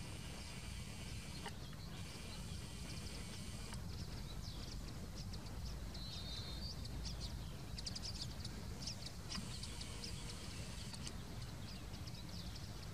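Outdoor ambience of small birds chirping, with a brief whistled note in the middle, over a steady low rumble. Three stretches of high, buzzing trill come and go, each lasting a second and a half to two seconds: two near the start and one after the middle.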